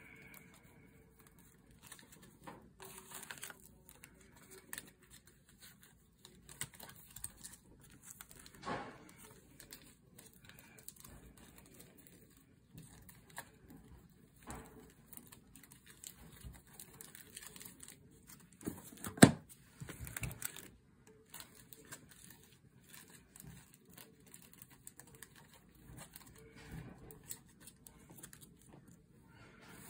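Sports cards being gathered and shuffled by hand: intermittent rustling and sliding of cardboard with scattered light taps, and one sharp knock about nineteen seconds in.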